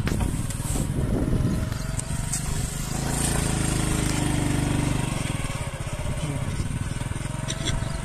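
Motorcycle engine running steadily as the bike rides along, with low wind rumble on the microphone.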